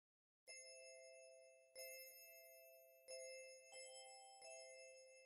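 Quiet bell-like chime notes, five slow strikes each ringing out and fading, starting out of silence about half a second in: the opening of a soft background music track.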